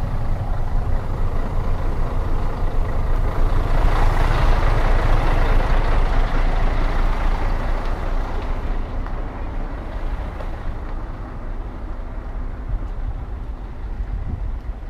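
Diesel engine of a tractor-trailer truck running at low revs while the rig reverses slowly, heard through the open cab door. The engine noise swells about four seconds in, then eases off after about eight seconds.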